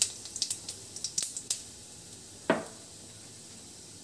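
Whole cumin seeds crackling in hot oil in a stainless-steel kadai: a quick run of sharp pops that thins out over the first second and a half. One last louder pop comes about two and a half seconds in, over a faint sizzle.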